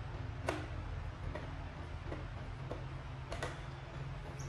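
Light clicks and taps of a knife and fruit pieces against plastic dishes as fruit is cut up: two sharper clicks about three seconds apart and a few softer ticks between, over a steady low hum.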